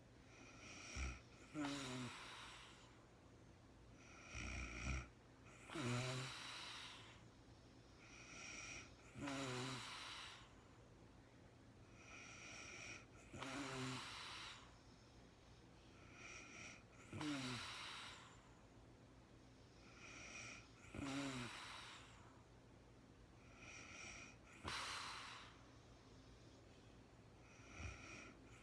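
A sleeping woman snoring steadily: about seven snores, one every four seconds or so, each a short rasp that slides down in pitch together with a breathy rush of air.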